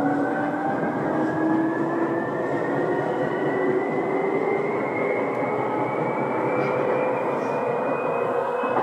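Seibu 2000 series electric train running, heard from inside the car. A steady rumble of wheels and running gear, with a whine from the traction motors that rises slowly and evenly in pitch as the train gathers speed.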